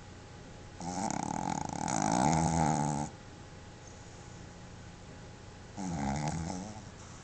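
Sleeping Boston terrier snoring: a long rattling snore of about two seconds, then a shorter one near the end.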